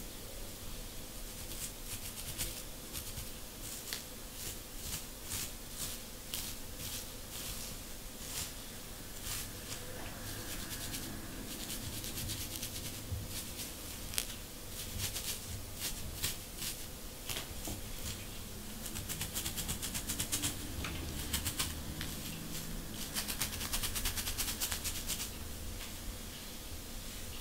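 A comb scratching at a dry scalp thick with dandruff flakes: a long run of short, crisp scratching strokes, coming thicker and faster in stretches about two-thirds of the way through and near the end.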